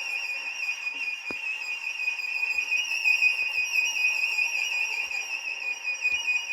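Music: one high instrumental note held throughout with a slow, even vibrato. A few faint knocks sound under it, one about a second in.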